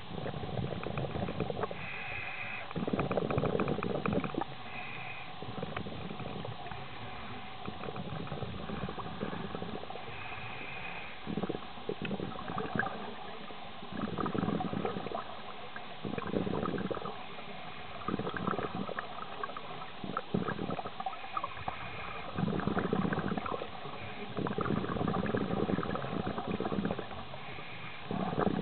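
Scuba diver's regulator breathing, heard underwater: short hissing inhalations alternating with rumbling bursts of exhaled bubbles, a breath every few seconds.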